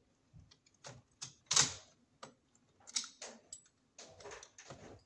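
Irregular clicks and light knocks of hands working the wiring and breakers inside an old Wadsworth breaker panel. The loudest click comes about a second and a half in, with a quick run of small clicks near the end.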